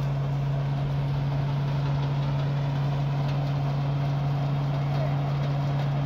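Rice thresher running steadily while threshing, a constant mechanical drone with a strong, unchanging low hum as it blows chopped straw out of its chute.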